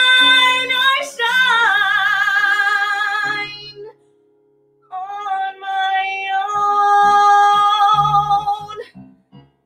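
A young woman belting long held notes with vibrato over a backing track. The singing breaks off for about a second around four seconds in, then comes back with more sustained notes before stopping shortly before the end.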